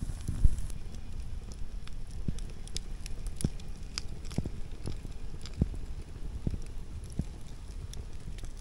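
Wood campfire crackling, with irregular sharp pops about once or twice a second over a low steady rush.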